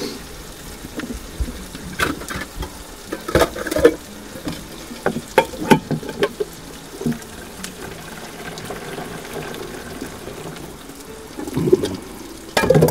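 A utensil clinking and scraping against a frying pan as food is stirred, with a faint steady sizzle underneath. The clinks come in irregular clusters through the first half, then thin out.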